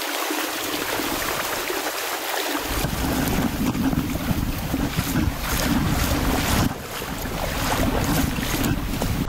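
Shallow, fast-flowing stream rushing over rocks while a hiker wades across it, with scattered splashes from the steps in the second half. From about three seconds in, a low rumble on the microphone joins the water noise.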